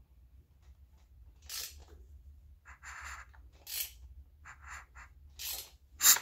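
Motorcycle V-twin engine being turned over slowly by hand: a string of short, irregular scraping rasps, with a quick cluster of them a little past the middle and a sharp click just before the end, over a steady low hum.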